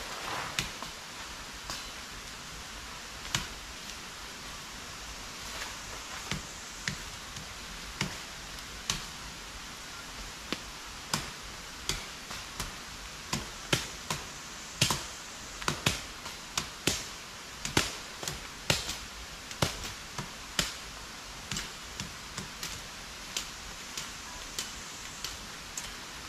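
Sharp, irregular chops of a machete cutting into brush and undergrowth, coming more often from about halfway through, over a steady hiss.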